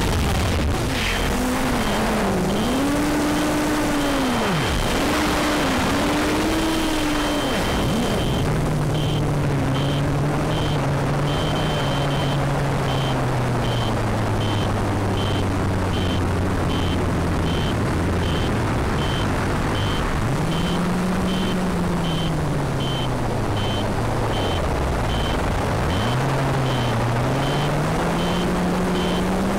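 FPV quadcopter's electric motors and propellers whirring over a steady rush of air, their pitch rising and falling as the throttle changes, heard from the drone's onboard camera. From about eight seconds in, a high beeping repeats about twice a second.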